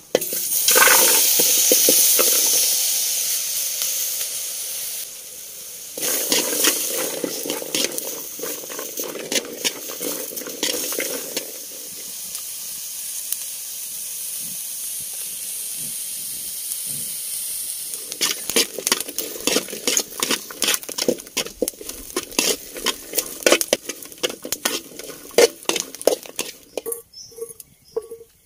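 Garlic, shallots and chilies sizzling as they are roasted in a pan. A spatula scrapes and clicks against the pan in quick strokes, busiest in the last third.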